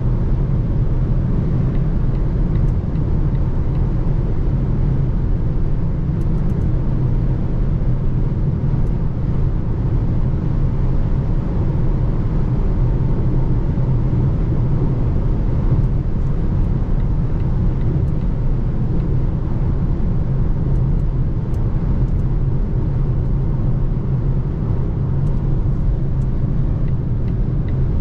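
Steady low rumble of road and tyre noise from a Volvo C40 Recharge pure electric car on the move, heard from inside the cabin.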